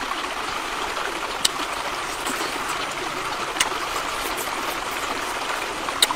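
Steady rushing of a stream, with three sharp clicks about one and a half, three and a half and six seconds in.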